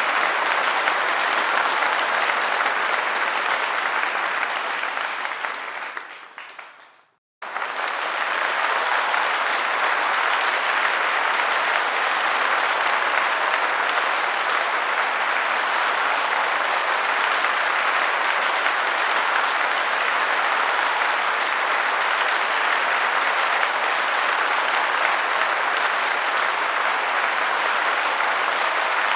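Crowd applause, a dense, steady mass of clapping. About six seconds in it fades away to a moment of silence, then applause starts again suddenly at full strength and carries on steadily.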